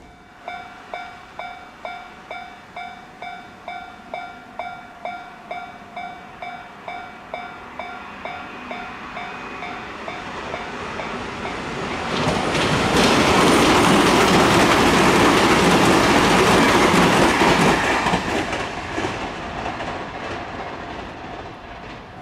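Japanese level-crossing warning bell ringing about twice a second. A train then comes up and passes over the crossing loudly for about six seconds, its wheels clacking on the rails, and the sound fades toward the end.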